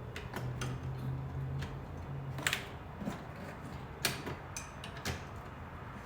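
Scattered light clicks and taps at irregular intervals, the sound of plastic door-handle parts and a handle module being handled and fitted together. The sharpest clicks come about two and a half and four seconds in.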